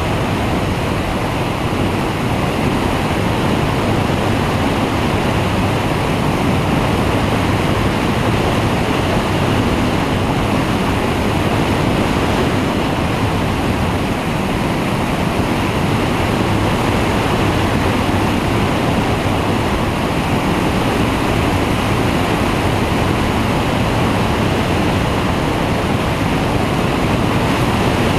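Flex-wing microlight trike in cruising flight: a loud, steady rush of airflow over a wing-mounted camera's microphone, with the trike's engine and pusher propeller running underneath.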